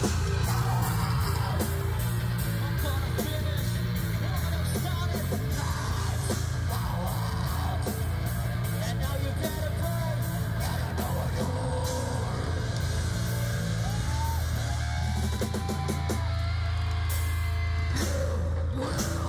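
Heavy metal band playing live: distorted electric guitars and bass, fast drums and yelled vocals, loud and dense throughout.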